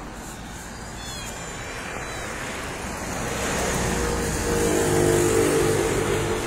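A motor vehicle passing on the road, its engine growing louder to a peak about five seconds in and then easing off, over steady traffic noise.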